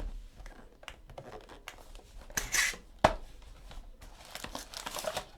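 Trading-card box packaging being torn open and handled: rustling and tearing, with a louder tear about two and a half seconds in and a sharp click just after three seconds.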